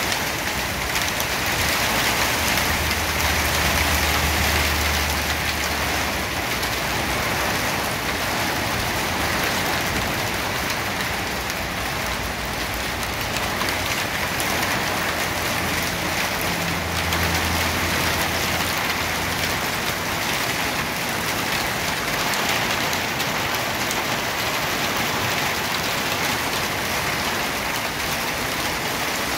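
Small hailstones falling and striking the ground in a dense, steady patter.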